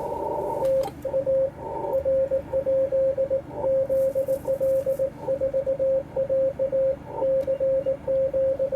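Morse code (CW) from an amateur radio transceiver on the 80 metre band: a single steady tone keyed on and off in rapid dots and dashes. It starts just under a second in, after a higher steady tone over receiver hiss.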